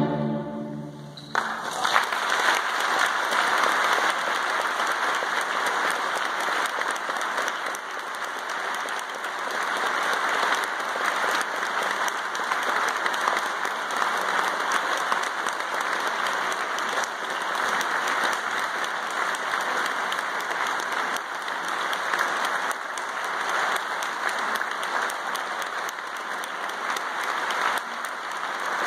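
The orchestra's final held chord cuts off about a second in, and the audience immediately breaks into steady, sustained applause.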